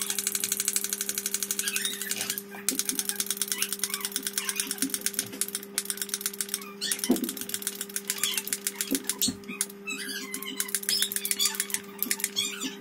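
Small handheld electric spray gun spraying yellow food colouring onto fondant: a steady electric buzz with a fast rattling hiss over it.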